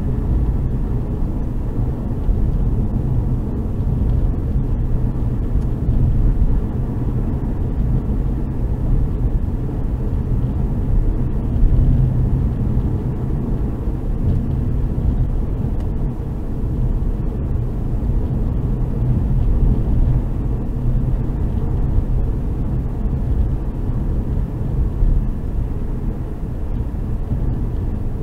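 Steady low rumble of road and engine noise from a Hyundai i30 driving along the road.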